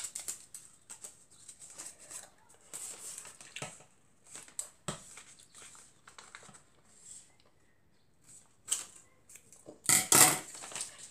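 Scissors snipping through folded paper, with the crisp rustle and crinkle of the paper being handled between cuts and a louder rustle near the end.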